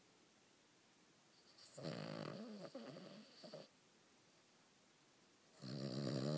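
A dog snoring: two long snores, one about two seconds in and a louder one near the end, with quiet between them.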